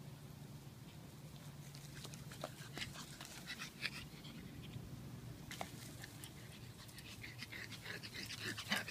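Pug puppy panting as it runs about, with irregular short rustles that grow busier near the end.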